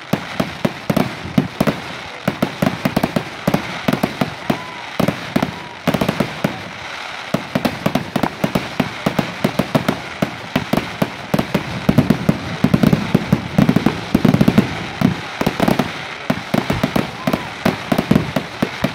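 Fireworks display: a dense, continuous run of bangs and crackling bursts, growing busier and louder for a few seconds past the middle.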